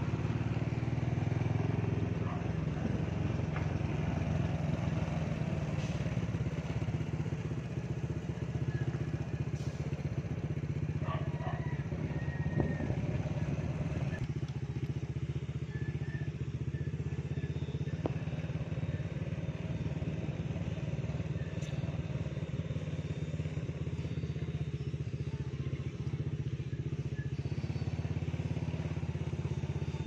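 Motorbike engine running steadily while riding along a road, a constant low drone with a few light clicks.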